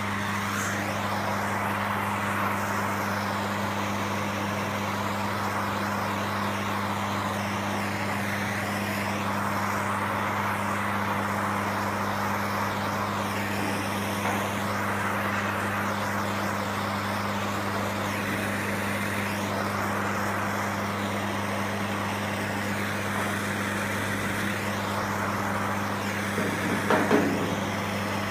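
Steady rushing hiss of a torch flame heating body lead on a car-body seam, swelling and fading as it moves, over a constant electrical hum. A few short, louder scrapes or knocks come near the end.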